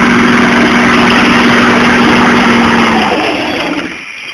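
1989 Chevy pickup's 350 V8 held at high revs at a steady pitch as the truck is driven hard past. About three seconds in the engine note drops away and the sound falls off.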